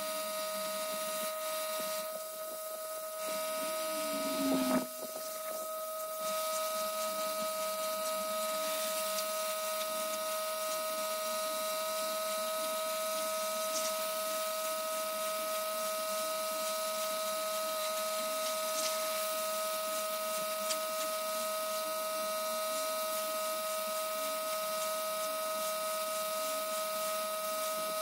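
A steady electrical hum and whine at a fixed pitch, with a short knock about four and a half seconds in.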